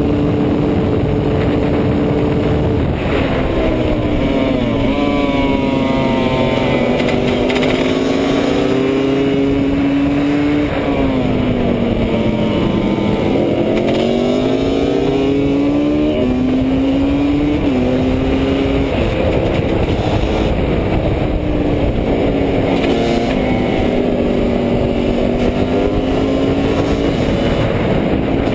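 Husqvarna WR300 two-stroke single-cylinder engine heard from onboard at race pace, with wind rush on the microphone. The engine note holds, falls away about halfway through, then climbs again in short rises that each drop back suddenly as the gears change.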